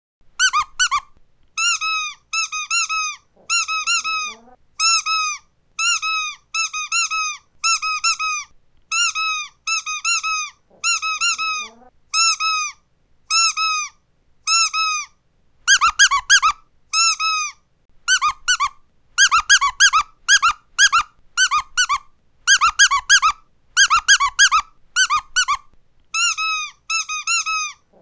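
Squeaky dog toy squeezed over and over, giving short high squeaks in quick groups of two to four about once a second, louder from about the middle on.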